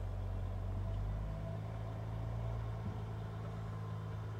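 Tri-axle dump truck's diesel engine running steadily with a low hum.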